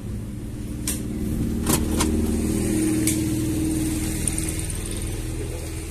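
Mercedes-Benz OH 1113 bus's six-cylinder diesel engine idling, heard from the driver's seat in the cabin, swelling slightly in the middle. A few sharp clicks sound over it in the first three seconds.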